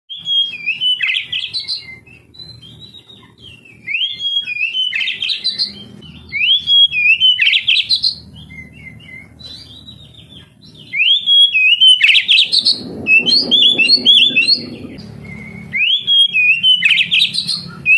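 Oriental magpie-robin (kacer) singing in loud, repeated phrases, each a rising whistle running into a quick chattering trill, every two to three seconds.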